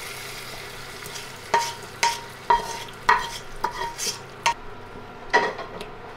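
Hot tempering oil with garlic, cumin and dried chillies sizzling as it goes into the pot of haleem, fading away within the first second or so. Then a metal utensil clinks against the pot with a short ringing tone eight times, about two a second, as the haleem is stirred.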